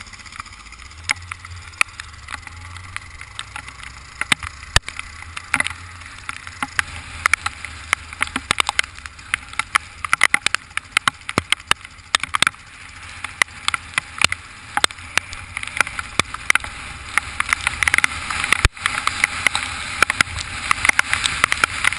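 Raindrops pelting a motorcycle rider's microphone in a downpour: sharp taps that come thicker and faster near the end, over rushing rain-and-wind noise and a low motorcycle engine drone.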